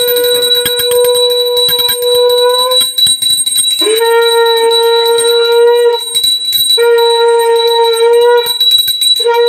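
A conch shell blown in long, steady held blasts, three with short breaths between and a fourth starting near the end. A small hand bell rings rapidly under it the whole time.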